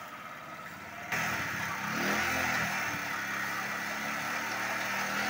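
Motorcycle engine running and revving up and down while driving a chaff cutter through its rear wheel, with the cutter chopping dry fodder stalks. The sound gets suddenly louder about a second in.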